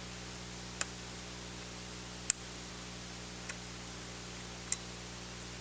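Phillips screwdriver working a small hinge screw out of a laptop's case: four sharp light clicks about a second apart, the second the loudest, over a steady hiss and hum.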